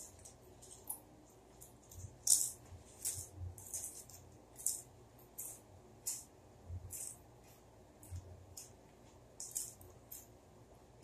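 Crunching of ghost pepper potato chips being chewed with the mouth close to the microphone: short, crisp crackles at an uneven pace, a few each second. The loudest comes a little after two seconds in.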